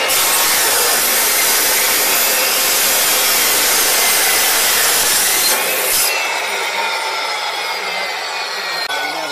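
A 14-inch saw with a Diablo carbide-tipped metal-cutting blade cutting through steel: a loud, harsh cutting hiss for about six seconds, then the blade winding down with a falling whine.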